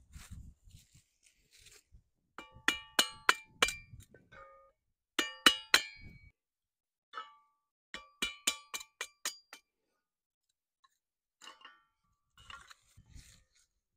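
Back of a hatchet hammering wood down through a metal kindling splitter, splitting kindling: three runs of quick, ringing metal-on-metal blows, four to six in each, then a few light clinks.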